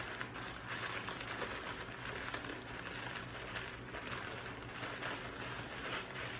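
Graham crackers being crushed inside a plastic bag: a steady crinkling of the bag with the crunch of crumbs as they are ground fine.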